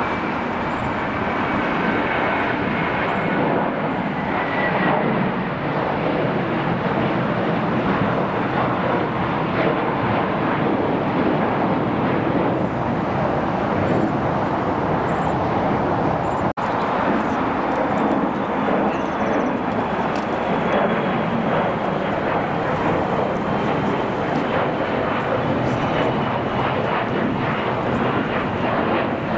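Jet airliner engines running: a steady, dense rush of engine noise with a faint high whine over it. There is a momentary break about halfway through.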